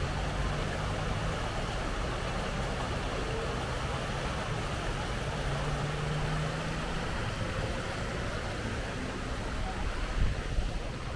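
Steady rush of a shallow river running over rocks, mixed with a low, steady drone of road traffic. A couple of louder bumps about ten seconds in.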